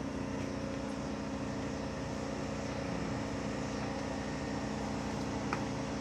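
A steady mechanical hum made of several held low tones, with a faint click about five and a half seconds in.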